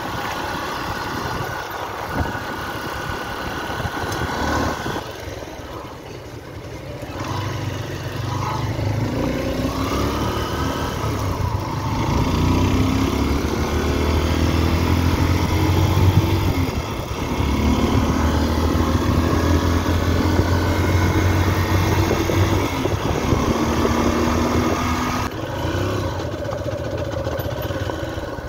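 Motorcycle engine running under way, its note rising again and again as the bike accelerates and easing off between pulls.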